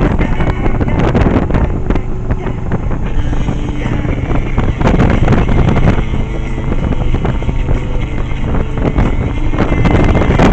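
Yamaha 1100 motorcycle engine running at riding speed, with wind buffeting the microphone.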